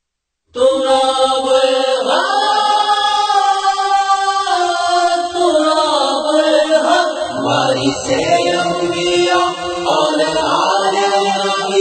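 Devotional vocal music: layered voices sing long held notes that slide from pitch to pitch, with no beat or percussion, starting about half a second in.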